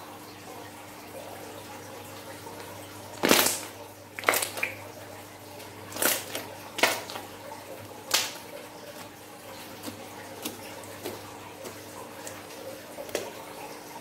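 Thick, glossy slime being stretched, folded and pressed by hand: wet, sticky squelches and pops. The loudest are a handful of sharp pops between about 3 and 8 seconds in; smaller clicks follow.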